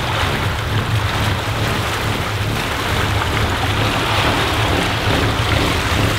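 Stern-drive motor cruiser's Volvo Penta engine running steadily underway as a low drone, with water rushing and churning in the wake.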